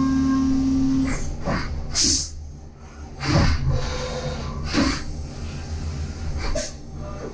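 Brother Speedio W1000Xd2 machining-centre spindle whining steadily at one high pitch as an Ø8 carbide chamfering cutter turns at 16,000 rpm, stopping about a second in. Then several short hissing bursts with low knocks follow during the change to an Ø8 reamer, with coolant spraying near the end.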